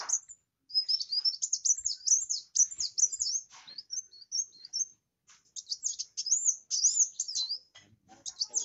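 Kolibri wulung (kowul) sunbird singing a fast, high-pitched twittering song of rapid chirps and trills, breaking off briefly about half a second in and again about five seconds in.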